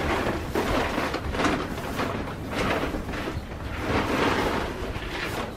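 Rustling and crunching of footsteps in dry straw bedding, in repeated noisy surges, over a steady low wind rumble on the microphone.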